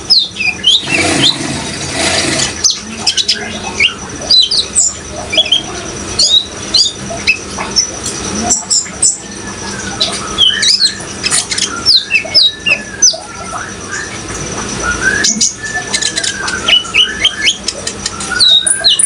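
Sunbirds (kolibri ninja) singing busily: rapid, high, sharp chirps and down-slurred notes, several a second, over a steady water sound, with a brief rushing noise about a second in.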